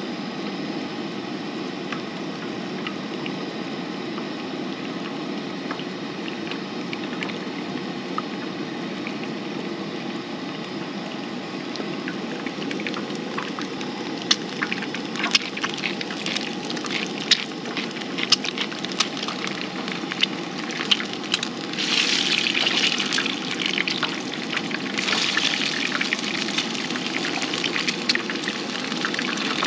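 Eggs frying in oil in a pan on a two-burner camp stove: a steady rush of the burner under the pan, with irregular spitting pops starting about halfway through. The sizzle turns louder and brighter in bursts near the end as a spatula works the eggs.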